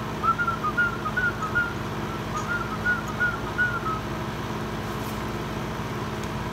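A whistled tune of short, quick notes, about three a second, that stops about four seconds in, over a steady background hum.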